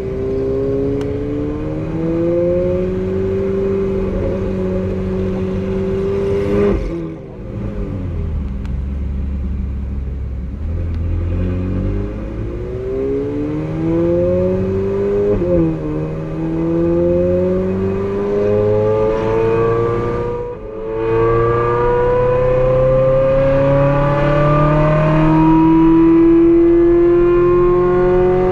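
Ferrari 458's 4.5-litre V8 with an aftermarket Brilliant exhaust under full-throttle acceleration: revs climb and drop back with each upshift, twice falling away sharply and building again, then a long climb in pitch near the end.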